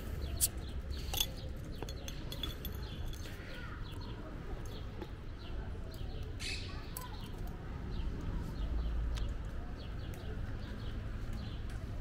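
A glass beer bottle's crown cap is pried off with a flat metal multi-tool bottle opener, giving two sharp clicks in the first second or so. Then comes a steady low street hum with birds chirping.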